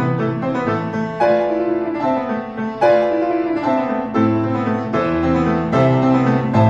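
Background music: piano playing a slow, sustained melody with chords, a new note or chord about every second.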